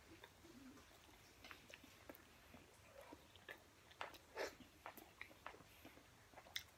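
Faint chewing and eating sounds: about a dozen small clicks and crunches of mouths working on Mexican food, scattered irregularly over otherwise quiet room tone.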